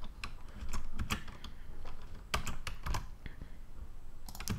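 Computer keyboard keys clicking in scattered, irregular presses, about a dozen short clicks, as Blender shortcut keys are tapped while modelling.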